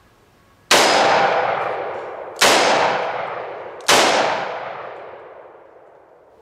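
Three shots from a Smith & Wesson Model 438 Airweight snub-nose revolver (2-inch barrel) firing .38 Special +P 125-grain Remington Golden Saber hollow points, about a second and a half apart. Each loud report dies away slowly and is still fading when the next shot comes.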